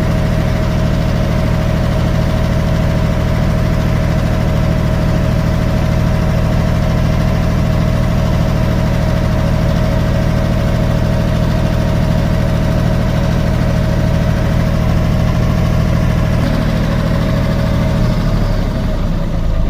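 Diesel generator engine running steadily, its note shifting lower near the end.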